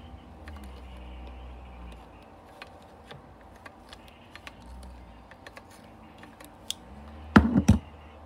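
Pliers and hands clicking and tapping on the metal mounting bracket and nut of an old NuTone bathroom fan motor during disassembly. About seven and a half seconds in comes a louder clatter of several quick metal knocks.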